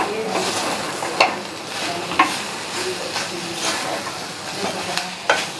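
Wooden spatula stirring and scraping grated coconut and jaggery around a stainless steel pot, with a few sharper scrapes against the pot. A light sizzle comes from the jaggery melting into the coconut over the heat.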